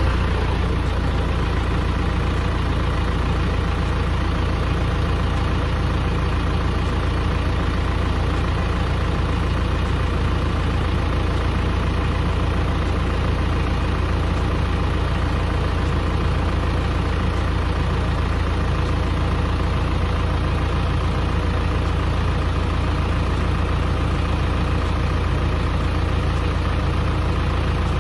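Claas Arion 430 tractor's diesel engine running at a steady idle close by.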